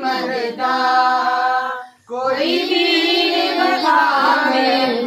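A single voice reciting a naat in long held, wavering sung notes, with a short breath break about two seconds in.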